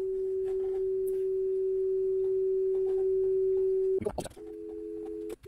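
Steady 400 Hz calibration test tone from a Nakamichi 600 cassette deck's built-in oscillator, used to set the record level to 0 dB. About four seconds in a click cuts it off, and the tone comes back split into two close pitches with a brief dropout near the end.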